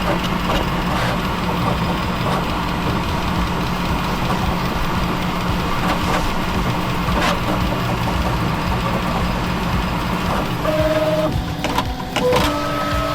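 3D printer running with its fans humming steadily. From about ten seconds in, the stepper motors sing in steady tones that jump from pitch to pitch as the print head moves.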